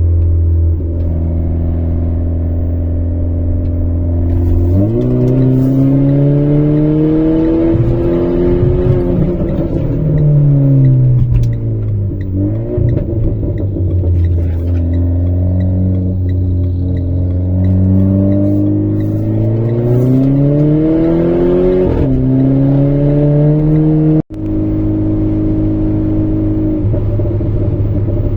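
Downpiped Renault Clio RS 1.6 turbocharged four-cylinder engine and exhaust, running steadily and then revving up and down several times, its pitch rising and falling repeatedly before settling steady again near the end. The sound cuts out for a moment shortly before it settles.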